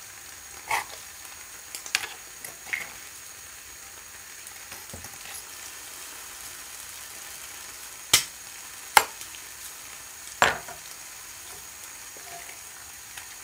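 An egg frying in butter in a pan, a steady sizzle broken by several sharp clicks, the loudest near the end.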